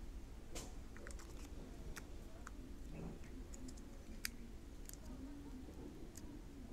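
Faint, scattered light clicks and taps of a small plastic action camera being handled in the hands, irregular and about a dozen of them.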